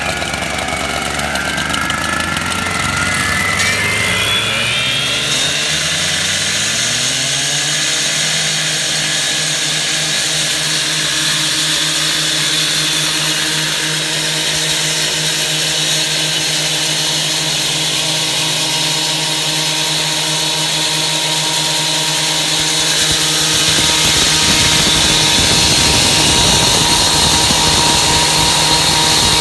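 Four gas-engine concrete cut-off saws (a Husqvarna 970, a Husqvarna K750, a Makita four-stroke and a Solo 881) revving up together over the first few seconds, their pitches rising. They then run steadily at full throttle as their diamond blades cut wet through a concrete parking bumper. The sound grows louder and fuller about 24 seconds in.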